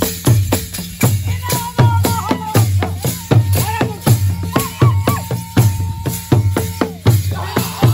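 Traditional Rwandan ingoma drums beating a steady, driving rhythm for the Intore dance, with deep strokes about twice a second and sharper hits in between, mixed with rattling percussion. A high held note sounds over the drums through the middle and falls away near the end.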